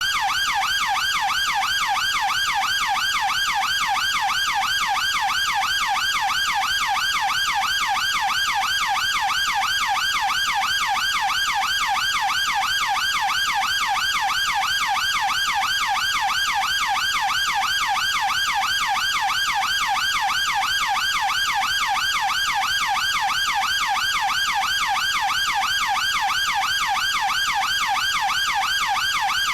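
UK police car siren sounding its fast yelp tone: a pitch sweeping rapidly up and down several times a second, steady and unbroken.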